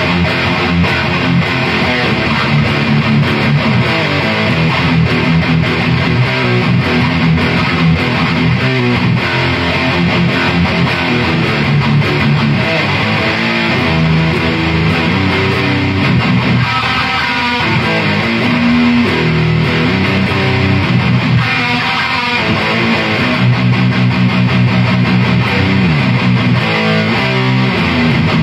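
Electric guitar riffs played continuously through an Ampeg V4B reissue tube amp head driving 2x12 and 4x12 speaker cabinets.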